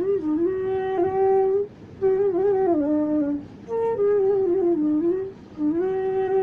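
Bansuri (Indian bamboo transverse flute) playing a slow melody in raga Khamaj, with notes that slide and turn into one another. The phrases are broken by three short breath pauses.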